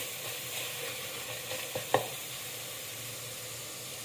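Onion-tomato masala frying in oil in a metal pot after its water has cooked off, with a steady sizzle as a spatula stirs it. Two quick knocks about two seconds in, the second one loud.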